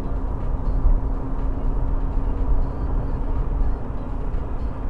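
Steady road noise of a car driving at motorway speed, heard from inside: a dense low rumble of tyres, engine and wind, with a faint steady hum that fades about halfway through.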